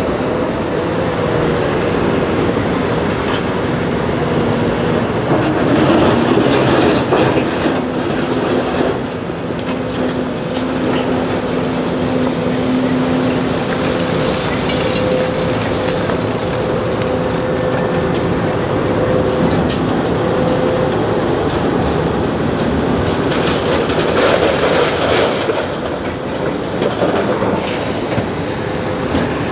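Heavy excavators' hydraulic breakers hammering concrete in a continuous clatter, over the steady hum of the running diesel engines.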